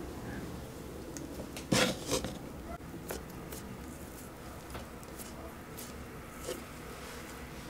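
Quiet handling sounds: fingers pressing, rubbing and pinching soft udon noodles on a wooden cutting board over low room tone, with faint light clicks and one louder soft thump about two seconds in.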